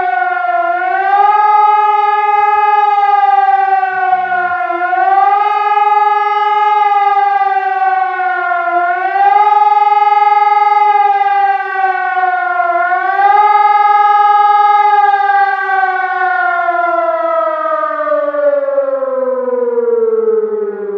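Civil defense warning siren sounding a test alarm: a loud wailing tone that rises and falls about every four seconds, four times, then glides steadily down over the last several seconds as it winds down.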